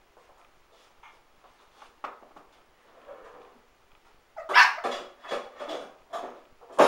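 Shih Tzu puppy yapping: a quick string of short, sharp barks starting about halfway through, with one more bark near the end.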